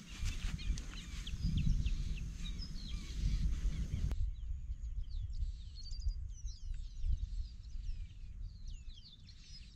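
Wind rumbling on the microphone, with many small birds chirping and whistling in the background.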